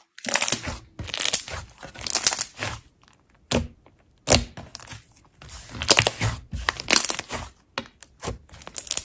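Slime being squeezed and pressed by hand: a series of squishy bursts made of many small pops, roughly one a second, with a short lull in the middle and a few sharp single clicks near the end.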